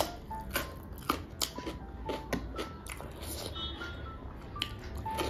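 Close-up chewing and crunching of a mouthful of rice, pork curry and fried chips, with a sharp bite right at the start and irregular crisp clicks after it, over soft background music.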